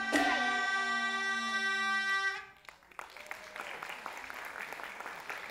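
The live traditional ensemble of a Taiwanese glove-puppet show ends its piece with a struck beat and a held ringing note, which cuts off a little over two seconds in. After a brief pause the audience begins applauding about three seconds in.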